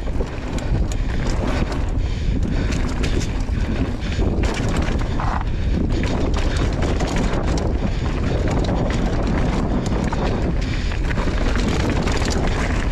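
Wind buffeting the microphone while riding a mountain bike along a dirt trail, with a steady run of clicks and rattles from the bike and tyres over rough ground. A short squeak comes about five seconds in.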